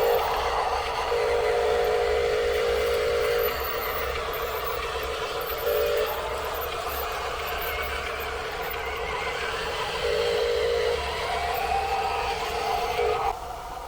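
Small electric motors and gears of radio-controlled toy construction vehicles running with a steady whir, a whine switching on and off several times and rising in pitch near the end.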